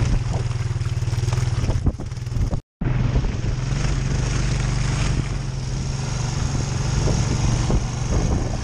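Honda ATV engine running steadily as the four-wheeler rides through wet grass and mud, picked up close by a camera mounted near the front wheel, with wind and tyre noise. The sound drops out for a moment about a third of the way in, then resumes.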